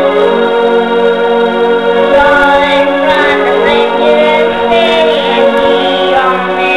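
Portable electronic keyboard played on an organ-like sustained voice: held low notes with a wavering melody moving above them.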